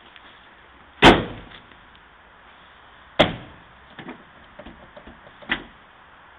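Panels of a STAR-JET hardtop on a VW Amarok pickup being slammed shut: two loud slams about two seconds apart, then lighter clicks and a final sharp latch click as the rear hatch is pushed closed.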